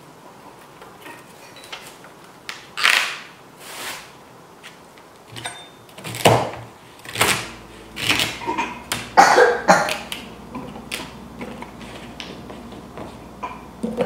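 Celery being cut with a chef's knife on a cutting board: a run of sharp, uneven knocks of the blade on the board, with rustling and handling noises before it.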